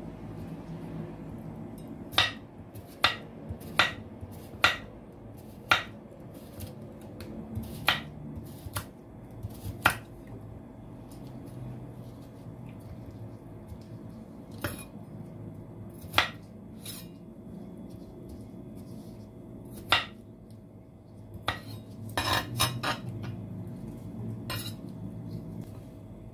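Chef's knife slicing a cucumber on a wooden cutting board: sharp knocks of the blade meeting the board, unevenly spaced about a second or more apart, with a quick run of clattering knocks near the end.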